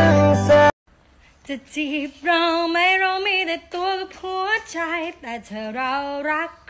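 Music with a steady bass line cuts off under a second in. After a short gap, a woman's voice sings alone, unaccompanied, in held notes that bend in pitch.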